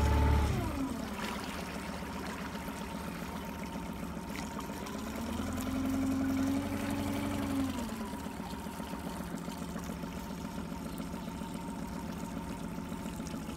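Boat motor running at low speed while the boat follows the hooked fish. Its pitch drops just after the start, comes up and gets louder for a couple of seconds about six seconds in, then settles back to a steady low hum.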